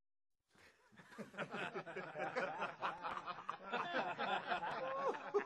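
Laughter that breaks out about half a second in, after a moment of dead silence, and keeps going as dense, busy chuckling and snickering: the reaction to a joke's punchline.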